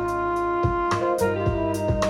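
Jazz recording playing: a horn holding long notes over drums, with regular cymbal and drum strikes.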